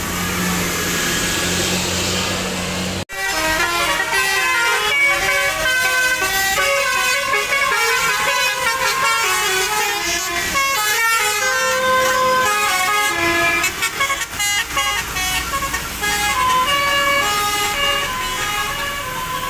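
Bus telolet Basuri multi-tone air horn playing a fast melody, its notes stepping up and down several times a second. It comes in after about three seconds of a steady low drone and a sudden break in the sound.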